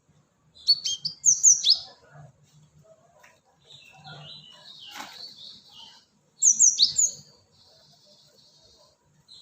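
Cinereous tit (gelatik batu) calling: two loud bursts of quick, sharp high notes that sweep downward, about a second in and again near six and a half seconds, with softer chattering in between.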